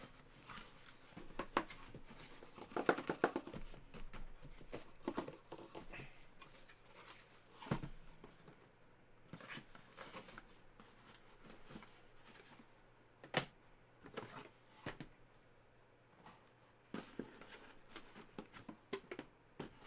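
Hands handling small cardboard boxes and plastic-cased graded cards: scattered clicks and taps with light rustling, sharpest a few times, once near the middle.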